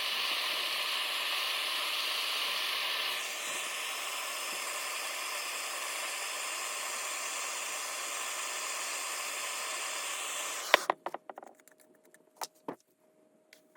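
Handheld gas torch burning with a steady hiss, heating a rifle's rear sight to melt the solder underneath. The hiss drops a little about three seconds in and cuts off suddenly near the end, followed by a few sharp clicks and knocks.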